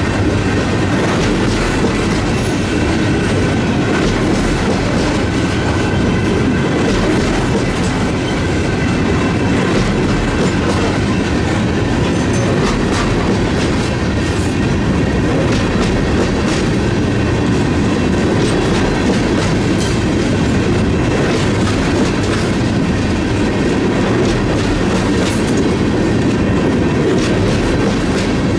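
Empty ethanol tank cars of a freight train rolling past close by: a steady, loud rumble of steel wheels with clickety-clack over the rail joints.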